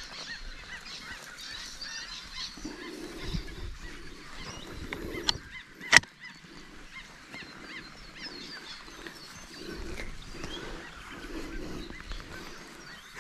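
Repeated bird calls in the background, with a sharp metallic click about six seconds in as a large adjustable spanner works on a brass ball valve.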